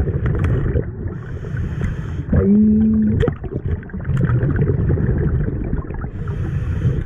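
Scuba diver breathing through a regulator underwater: a rumble of exhaled bubbles, with the hiss of an inhale about a second in and again near the end. In the middle, a short hummed "mm" through the mouthpiece.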